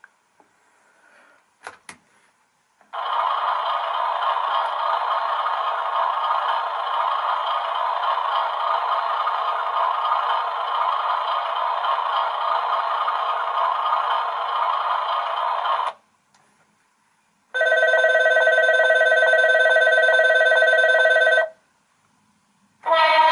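Station departure-bell sound effect: a click, then an electric bell ringing continuously for about thirteen seconds. After a short pause, a steady tone of several pitches sounds for about four seconds, and another short chime with changing pitches begins near the end.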